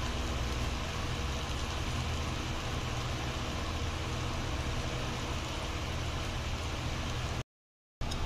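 Chicken fingers deep-frying in hot oil: a steady sizzle with a low hum underneath. The sound cuts out completely for about half a second near the end.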